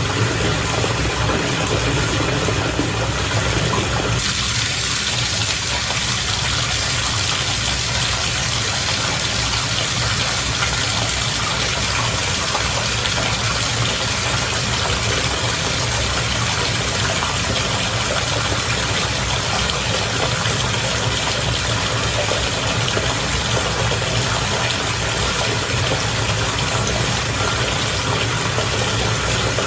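Bathwater bubbling and churning steadily over the low, steady hum of a spa bath's bubble motor. About four seconds in the sound shifts to a brighter, hissier bubbling.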